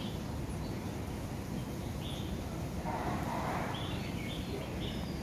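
A few short high chirps from small animals about two seconds in and again towards the end, over a steady low rumble of outdoor background noise.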